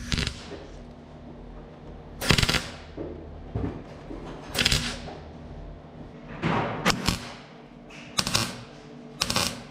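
MIG welder laying short tack welds on thin sheet-steel body panels: about nine brief crackling bursts, each under half a second, with pauses between them.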